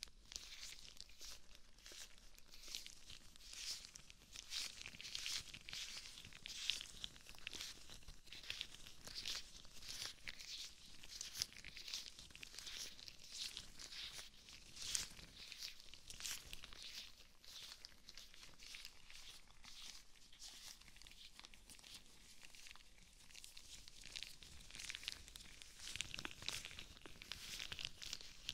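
Rubber gloves rubbing and crinkling right at a binaural microphone's ear capsules: a continuous run of quick, soft rustling strokes.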